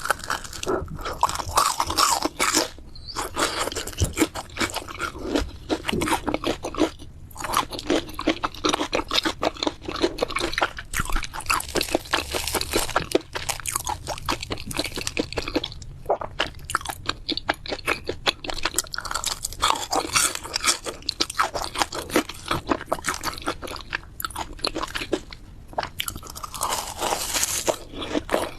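Close-miked biting and chewing of crispy deep-fried food, a dense run of crackling crunches with a few brief pauses.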